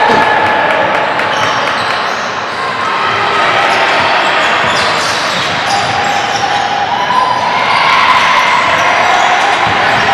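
Live indoor basketball game: a ball dribbling on a hardwood gym floor, sneakers squeaking and players calling out, all echoing in the hall.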